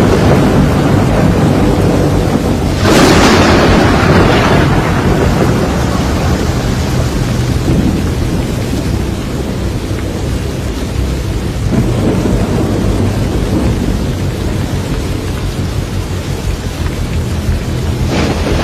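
Thunderstorm: rain and a constant low rumble, with sudden louder surges of rumble about three seconds in and again near the end.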